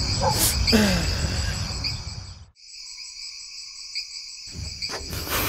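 Night ambience of crickets chirring in a steady high trill. A low background noise under it drops away about halfway through and returns near the end.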